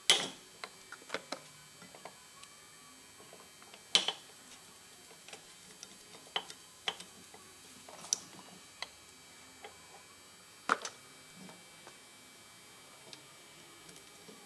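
Brake caliper, pads and bracket being handled on a metal workbench: scattered metal clinks and light taps, with three sharper knocks at the start, about four seconds in and about eleven seconds in.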